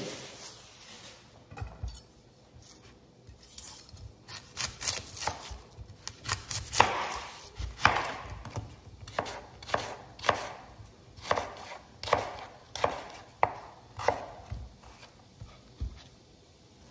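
Chef's knife cutting a yellow onion on a cutting board. A few scattered light knocks come first, then from about six or seven seconds in a steady run of sharp knife strikes onto the board, a little under two a second, which stop shortly before the end.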